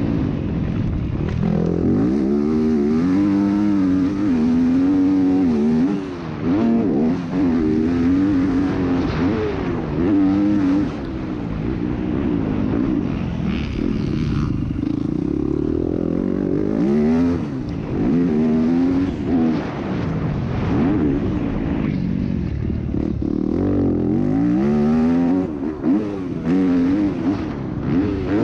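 Yamaha YZ250F's 250cc single-cylinder four-stroke engine, picked up by a helmet camera, revving up and falling back again and again as the bike is ridden hard around a motocross track. The throttle is briefly shut off a few times, about 6, 11 and 25 seconds in.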